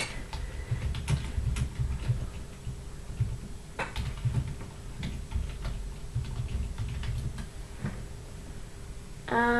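Irregular clicks and soft taps of typing on a computer keyboard, with low bumps of hands and body against the desk and a faint steady hum.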